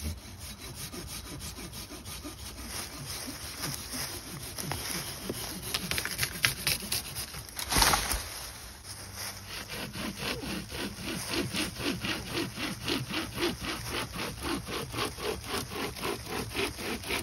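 Folding pruning saw rasping back and forth through a live green sapling, with a loud crack about eight seconds in as the stem gives way. A pocket chainsaw, a toothed chain pulled by two hand straps, then takes over, cutting the green wood in a steady rhythm of about three strokes a second.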